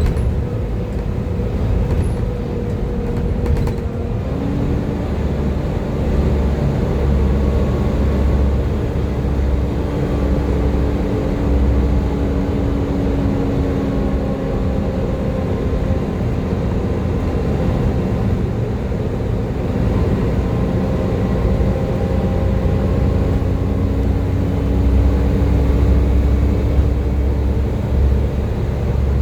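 Volvo B7TL double-decker bus's 7-litre six-cylinder diesel engine running under way, with a heavy low rumble. From about four and a half seconds in, a steady whine sits over it, sinking slightly in pitch and dying away near the end.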